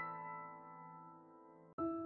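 Background piano music: a held chord fades away, then a new phrase of notes begins near the end.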